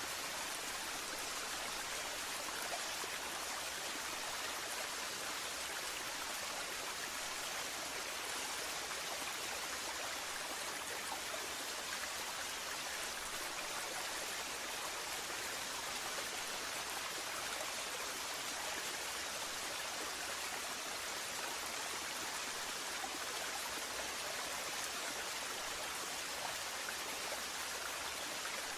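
Waterfall: steady rushing and splashing of falling water, an even hiss with no changes.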